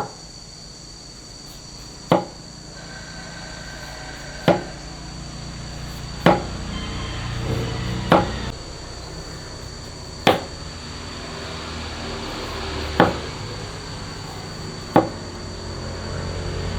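Eight sharp knocks, spaced roughly two seconds apart, over a low steady hum that grows louder toward the end.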